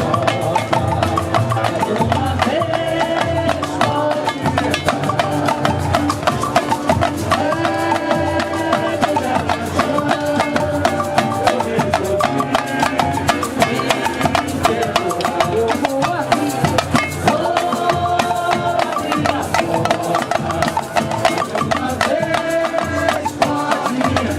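Samba music: voices singing a samba over busy, steady samba percussion.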